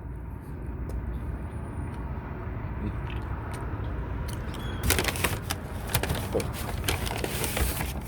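Paper rustling and crinkling in dense crackles from about five seconds in, as a fast-food paper bag is rummaged for napkins, over a steady low rumble.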